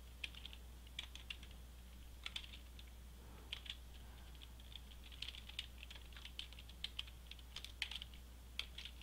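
Computer keyboard being typed on: faint, irregular keystrokes in short runs. A steady low hum runs underneath.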